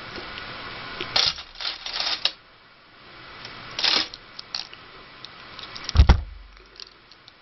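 Bicycle chain links clicking and rattling in bunches as the chain is handled and fed over the rear derailleur's lower jockey wheel, with a single dull thump about six seconds in.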